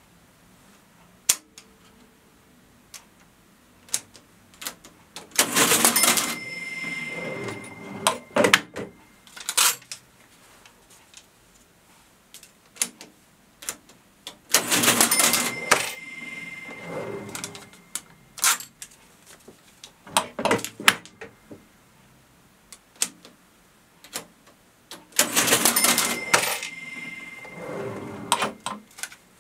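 NCR Class 6000 mechanical cash register being operated: scattered key clicks, then three register cycles, each a loud burst of mechanism clatter with a steady ringing tone held about two seconds, followed by a few clacks.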